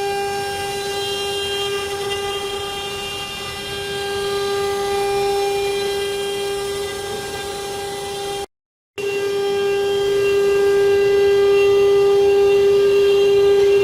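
CNC wood router spindle running with a steady high whine and a row of overtones. It breaks off for about half a second around eight and a half seconds in, then resumes a little louder.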